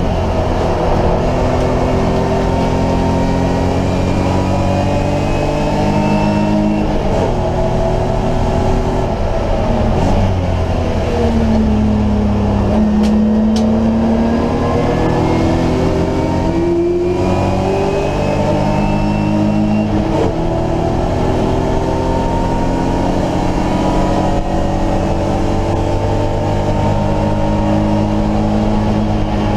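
A BMW E30 race car's engine heard from inside the cabin at racing speed. It climbs in pitch through the gears and steps down at each shift. About halfway through it falls low under braking, then pulls back up.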